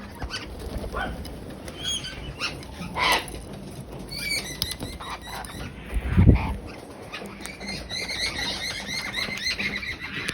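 Small birds chirping: scattered calls at first, then a quick run of short repeated high notes in the second half. A dull thump about six seconds in is the loudest sound.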